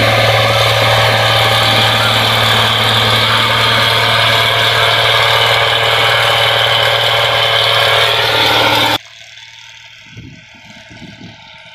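New Holland combine harvester running steadily as it cuts and threshes rice: a loud, even drone with a strong low hum. About nine seconds in it drops abruptly to a much quieter, more distant running of the same machine.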